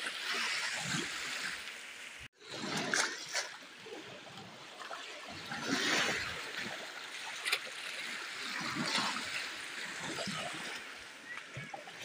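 Small sea waves lapping and washing at the shoreline, the wash swelling and easing every few seconds. The sound cuts out for an instant about two seconds in.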